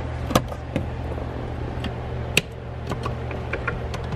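Plastic wiring-harness connectors being unlatched and pulled off a car's body control module: irregular sharp plastic clicks and snaps, the loudest about a third of a second in and halfway through, over a steady low hum.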